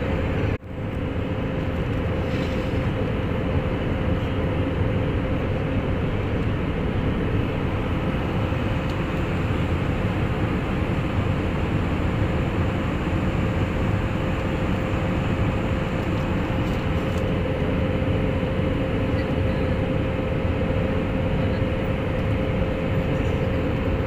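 Steady jet engine and airflow noise inside an airliner cabin, heard beside the underwing turbofan, with a constant droning hum. The sound briefly drops out about half a second in.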